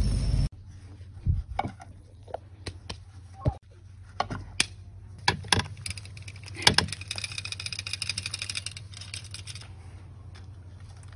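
A loud rush of noise that cuts off suddenly about half a second in, then scattered metallic clicks and clanks as a wire grill basket is handled and opened. Later comes a rapid high ticking trill lasting about three seconds.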